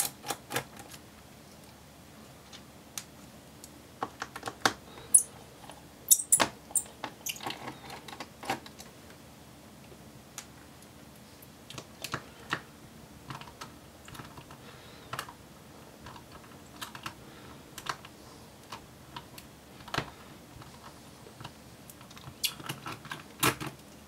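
Small Phillips 00 precision screwdriver backing screws out of a laptop's base panel: irregular light clicks and ticks, coming in small clusters with gaps between.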